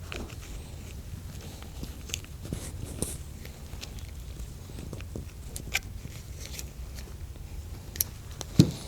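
Scattered small clicks and taps of a metal O-ring pick and the relay's shaft being handled as O-rings are pried out of their grooves, over a low steady hum.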